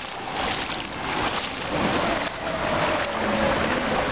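Floodwater sloshing and splashing around the legs of someone wading through it, a steady wash of water noise that swells and eases every second or so.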